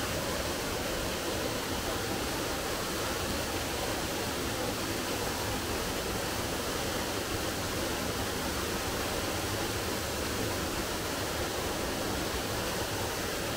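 Steady rushing of running water, a stream or waterfall, an even unbroken hiss with no change in level.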